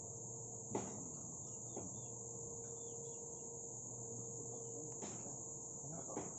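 Steady high-pitched drone of insects, with a few light knocks, about four in all, as the pipe is handled.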